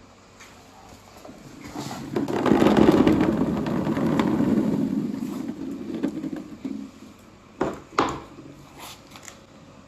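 A large batch of glass marbles rolling together down a marble run, a rumble that builds, peaks and fades away over a few seconds, followed by two sharp clacks of marbles striking each other.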